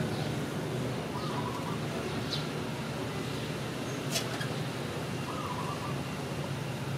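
A bird's short call, repeated about every four seconds, over a steady low hum, with one sharp click about four seconds in.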